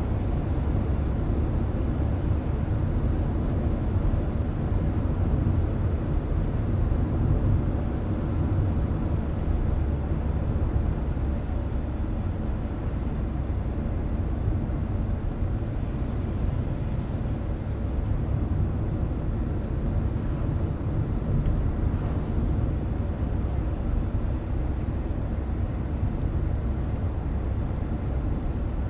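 Car driving along a road, heard from inside the car: a steady low rumble of tyres and engine.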